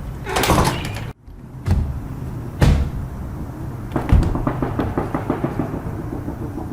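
A series of knocks and thumps, with the sound dropping out briefly about a second in, followed by a quick run of light clicks, about four or five a second, over the second half.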